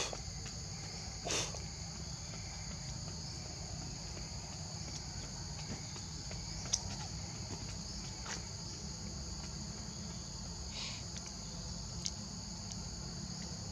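Steady high-pitched insect chorus, crickets or cicadas, running without a break, over a low steady rumble, with a few faint clicks scattered through.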